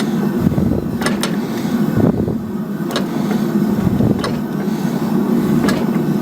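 Steel forging tools clinking sharply against each other and the hot steel plate, five times at irregular intervals about a second apart, each with a short metallic ring, over a steady low mechanical drone.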